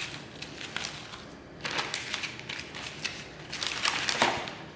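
Plastic zipper-lock bag crinkling and rustling in two bursts as raw chicken thighs are handled and pushed into it, with a few small clicks and taps.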